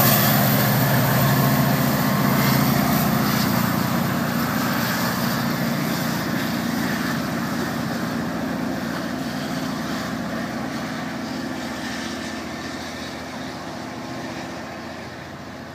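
Amtrak F59PHI diesel locomotive's 12-cylinder EMD 710 engine running under power as it pushes the train away, its steady hum fading gradually as the train recedes.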